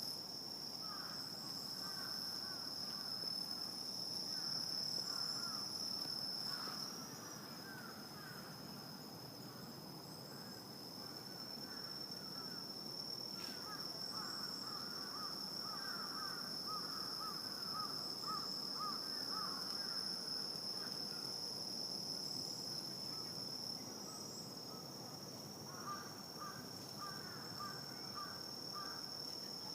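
Night insect chorus: a steady, high-pitched trill that runs unbroken, joined in three bouts by rapid chattering calls from another animal.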